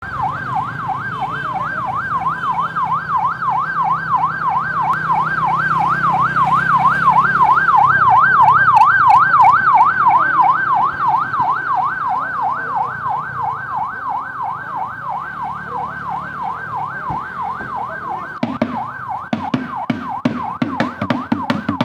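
Motorcade escort vehicle's electronic siren in a fast yelp, rising and falling a few times a second. It grows louder to about eight seconds in, fades as it passes, and stops about eighteen seconds in. A regular beat of sharp knocks starts near the end.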